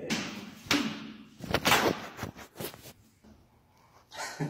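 Quick shadowboxing strikes thrown close to the microphone: several short, sharp swishes of moving arms and clothing in the first three seconds, the loudest a little before two seconds in, then quiet.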